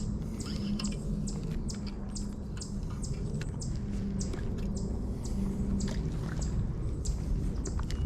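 Small birds chirping, short sharp calls a few times a second, over a steady low rumble.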